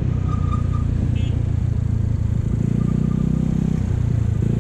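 Motorcycle engine running at road speed under wind and road noise, its hum growing louder a little past halfway.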